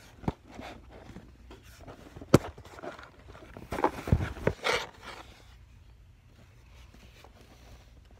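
Handling noise: a few sharp knocks and rustling as the phone and things are moved about and set down on a cloth-covered surface, the loudest knock about two and a half seconds in and a cluster of knocks and rustles around four to five seconds in.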